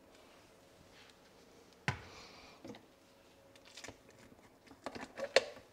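Clicks and knocks as the lid comes off a Magimix Cook Expert and the whisk attachment goes into its stainless steel bowl. One sharp click comes about two seconds in, then a few fainter clicks near the end.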